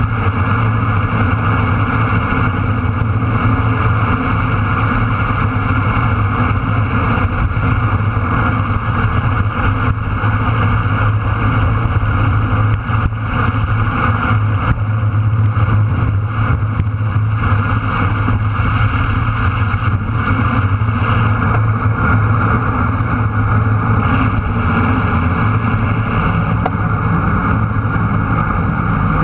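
Steady rush of wind and road noise on a bicycle-mounted action camera moving at speed, with a heavy low rumble.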